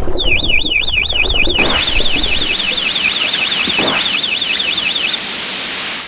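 Cartoon sound effects for a toy water gun spraying: a steady hiss under a high electronic warbling tone that rises and falls about five times a second. The warble stops about five seconds in, and the hiss cuts off at the end.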